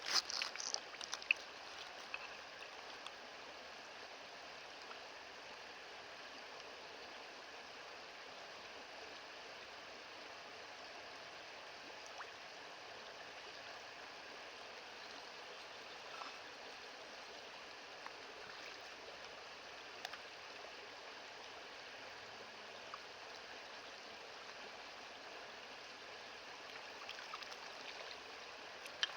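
Steady rush of a flowing river, with a few faint clicks near the start.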